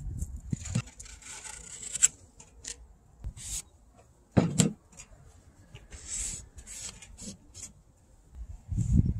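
Gloved hands rubbing and wiping over a wooden stool's seat and legs, a run of short scraping strokes with gaps between them. A louder knock of wood on the bench about four and a half seconds in.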